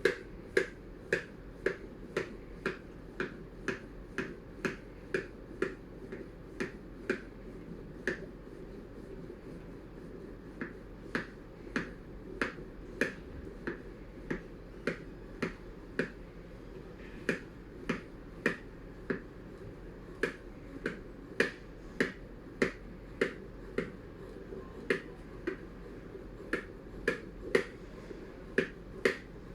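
Sharp clicks repeating steadily about twice a second, with a couple of short pauses.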